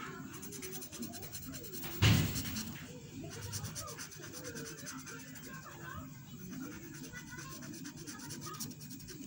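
Felt-tip marker rubbing and scratching on paper as a drawing is coloured in, with one loud thump about two seconds in. Faint voices or music run in the background.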